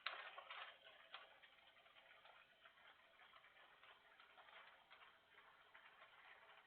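Near silence with faint, irregular clicking and ticking, a little louder in the first second.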